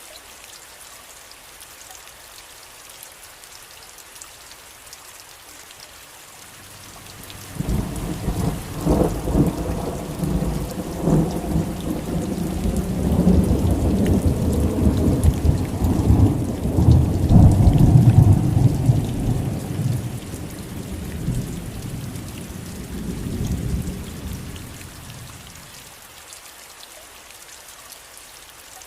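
Steady rain falling, with a long roll of thunder that breaks in sharply about a quarter of the way through, rumbles loudly and unevenly for about fifteen seconds, and dies away well before the end.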